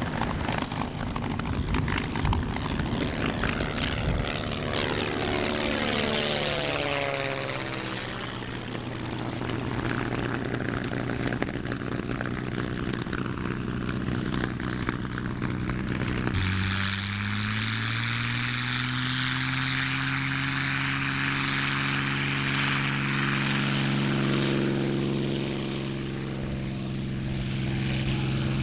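P-51 Mustang's V-12 piston engine running with its propeller turning as the fighter taxis, a steady drone with a falling pitch sweep about six seconds in. After an abrupt change partway through, the engine note climbs slowly as power comes up for the take-off roll.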